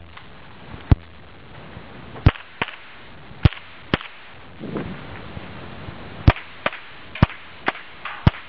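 A rifle fired in a string of about eleven sharp shots at uneven spacing, several as quick pairs about half a second apart, as in a timed practical-shooting course of fire.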